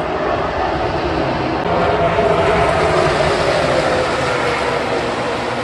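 A pack of NASCAR Xfinity Series stock cars racing past at speed, their V8 engines blending into one loud, dense roar. It swells about two seconds in, and its pitch sags a little as the field goes by.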